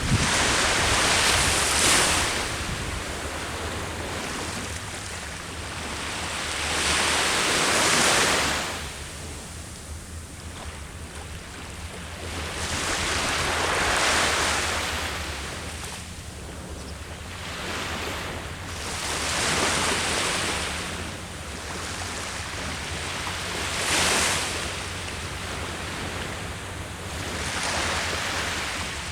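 Ocean waves breaking on the shore, the surf swelling and fading about every five to six seconds.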